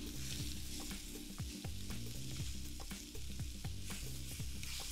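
Floured beef chunks sizzling as they sear in hot oil in a large pot. Metal tongs click against the meat and the pot rim as the pieces are turned, several times.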